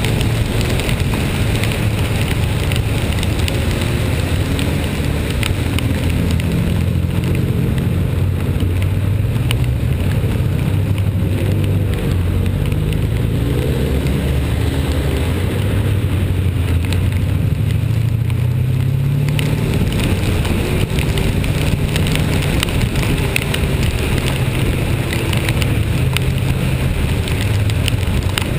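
A vehicle engine running steadily, its pitch rising and falling through the climb. Behind it is a constant hiss of rain and wet road noise.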